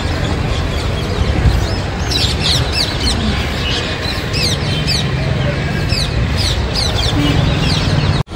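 Many birds chirping in short, quickly repeated falling chirps over a steady background din.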